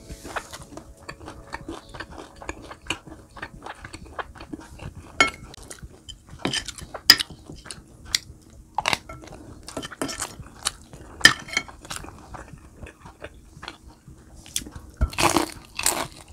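Close-miked crunchy chewing of crispy fried food, irregular crackles and crunches, with occasional clinks of utensils on a plate.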